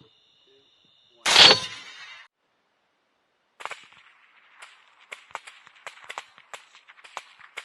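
A single rifle shot at feral hogs, sharp and loud, with its echo dying away over about a second. About two seconds later come faint, irregular clicks and rustling.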